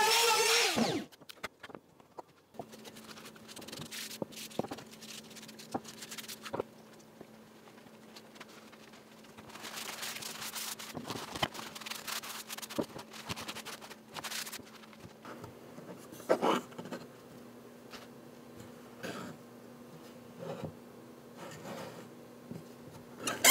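Palm router with a roundover bit running, then switched off and spinning down about a second in. Afterwards a faint steady hum, hands rubbing over the oak piece, and a few light wooden knocks as the lid is handled on the box.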